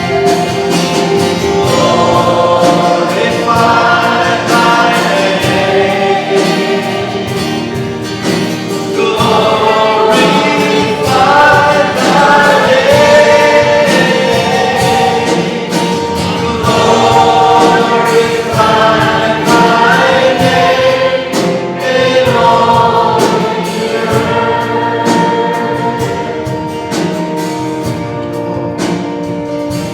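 A group of voices singing a slow worship song together over instrumental accompaniment.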